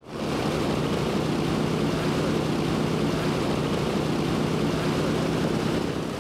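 Grumman F8F Bearcat's Pratt & Whitney R-2800 radial engine running steadily on the ground with the propeller turning. The sound fades in at the start and then holds level.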